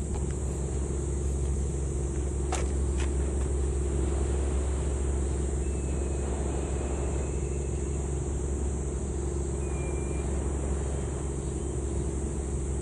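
Steady low outdoor rumble with a faint steady hum above it, and two sharp clicks about two and a half and three seconds in.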